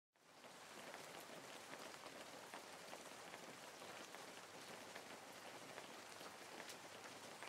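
Faint, steady sizzling and crackling of a dried-fish curry with Malabar spinach stems and potatoes frying in a pan.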